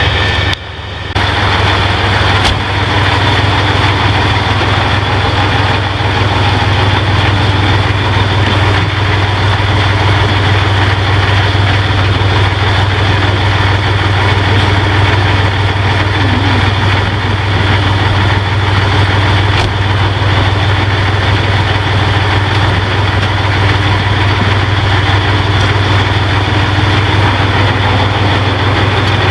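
Fire truck engine idling steadily, a deep even hum under a wide, level noise, with a brief drop in level about a second in.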